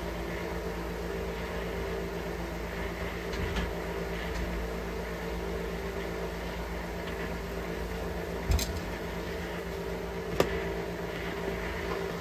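Steady mechanical hum holding a few low tones, with two short sharp knocks about eight and ten seconds in.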